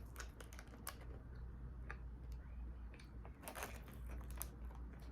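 Chewing a crunchy fried egg roll close to the microphone: scattered crisp crunches and mouth clicks, a few bunched together about three and a half seconds in.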